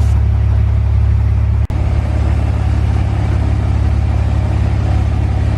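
A car engine running steadily with a low rumble, broken by a split-second dropout about two seconds in.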